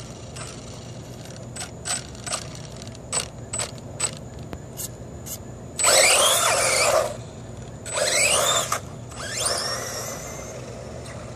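Dromida RC buggy with a brushless motor kit: a string of short throttle blips, then two loud bursts of hard acceleration with a rising motor whine as it passes close, and a third rising whine that fades as the buggy runs off.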